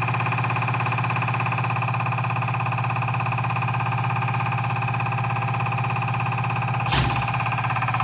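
CRI100A common rail fuel injector test bench running steadily, its drive motor and high-pressure pump at stable speed with the rail pressure settled. A single sharp click comes about seven seconds in.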